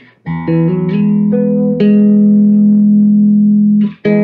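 Electric guitar played through a 1968 Fender Pro Reverb valve combo amp as a post-repair playing test. A quick run of picked notes leads into a chord held ringing for about two seconds, which stops just before another chord is struck near the end.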